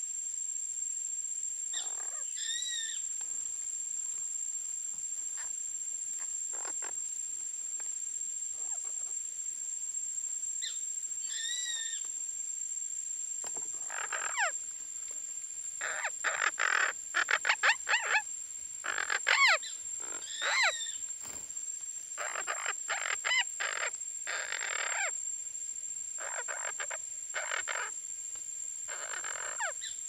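Parakeets calling: one call repeats about every nine seconds, and a flurry of harsh squawks and chatter fills the middle, over a steady high-pitched whine.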